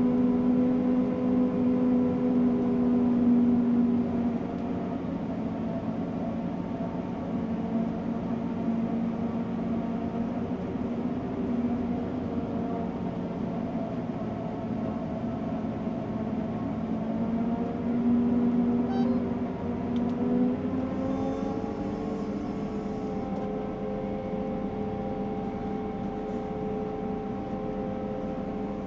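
Krone BiG X 630 self-propelled forage harvester chopping maize, heard from inside the cab: a steady machine drone with several humming tones. It is louder for the first four seconds and again around eighteen to twenty seconds in, where the pitch dips and then climbs back.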